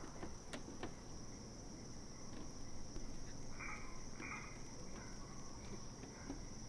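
Crickets chirping in a steady, high, unbroken trill, a night-time insect chorus, with a few faint knocks.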